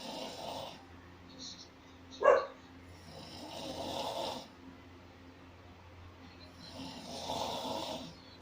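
Loud snoring in slow, even breaths, one roughly every three and a half to four seconds. A brief, sharper and louder sound comes a little over two seconds in. A low steady hum runs underneath.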